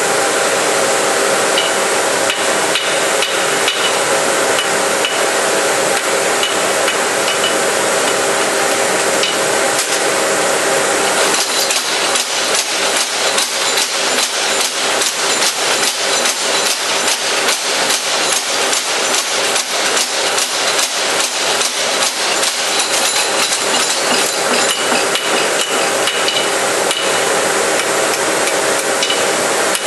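Repeated hammer blows forging steel carving-tool blanks over a steady machine hum; about eleven seconds in, the blows settle into a fast, even rhythm.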